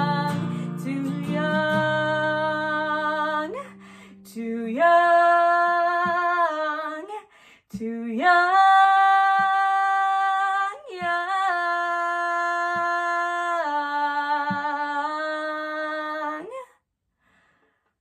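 A woman singing long held notes over an acoustic guitar. A strummed chord rings for the first few seconds, then the voice carries almost alone over a few faint taps, and both stop near the end.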